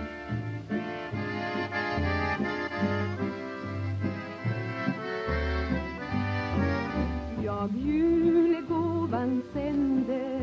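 Background music: sustained chords over a pulsing bass line, with a wavering melody line entering about eight seconds in.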